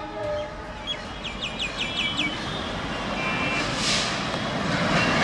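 WDM3A diesel locomotive pulling a train along a station platform: the last of its horn fades out in the first half second, a quick run of short high chirps follows about a second in, and the train's rumble grows louder toward the end.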